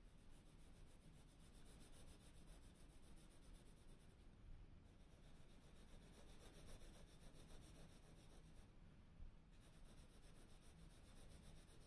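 Faint scratching of a graphite pencil shading on smooth bristol paper, pausing briefly twice.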